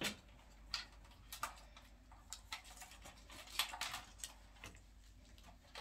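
Irregular light clicks and taps of small plastic parts and cable connectors being handled as a flat-screen TV's internal modules are unplugged and removed.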